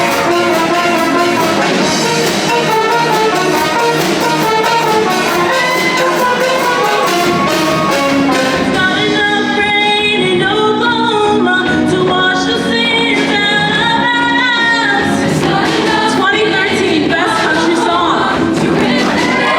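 Show choir singing with instrumental accompaniment, the texture thinning to held chords in the middle before filling out again.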